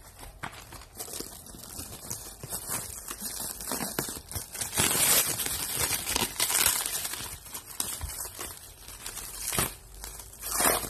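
Clear plastic wrapping crinkling and crackling as hands pull it off a box, loudest in the middle, with two sharp crackles near the end.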